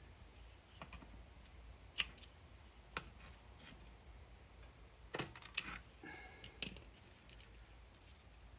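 Scattered light clicks and taps from hands working muffler repair tape around a muffler. There are single clicks about a second apart early on, then a closer cluster around the middle.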